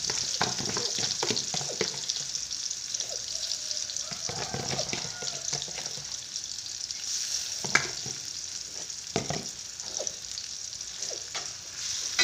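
Blended red chili paste for sambal balado sizzling steadily as it fries in oil in a wok. A few sharp clinks and knocks of a metal spatula against the wok come through, the loudest about eight seconds in and again at the end.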